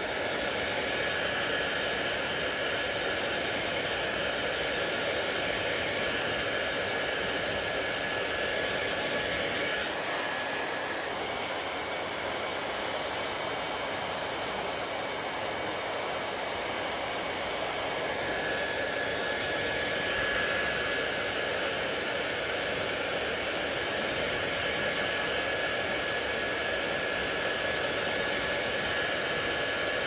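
Handheld hair dryer blowing steadily while drying wet hair. A faint high whine in its sound drops out about a third of the way through and comes back a little past halfway.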